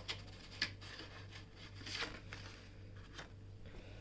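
Paper pages of a printed colouring book being turned and handled: a few short rustles and taps, over a steady low hum.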